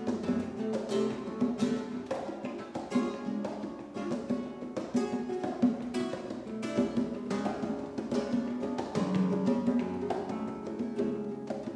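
Nylon-string flamenco guitar playing a lively passage of quick plucked and strummed notes, accompanied by congas.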